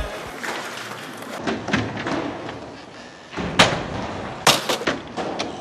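A few sharp knocks and thuds over a low rumble, the two loudest about three and a half and four and a half seconds in.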